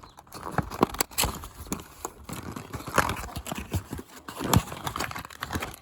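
Crinkling and rustling of a new spark plug's packaging being handled and opened, with many small sharp clicks and taps.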